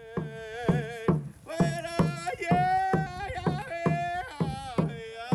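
A drum beaten in a steady, even beat, about two to three strikes a second, under singing.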